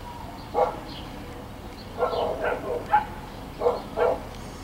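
A dog barking: about six short barks, spaced irregularly, starting about half a second in.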